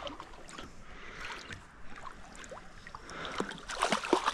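Water splashing with scattered light knocks and rustles as a hooked sooty grunter is brought in at the water's edge. It gets busier and louder near the end.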